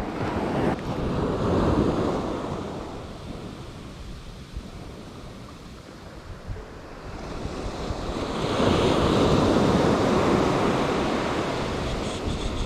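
Ocean surf breaking and washing up the beach in two swells, the second and louder one rising about eight seconds in and slowly falling away. Wind buffets the microphone.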